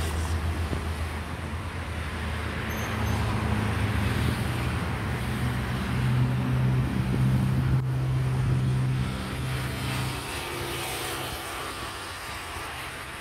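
A low engine hum that swells and rises slightly in pitch about six seconds in, then fades over the last few seconds, over a steady hiss.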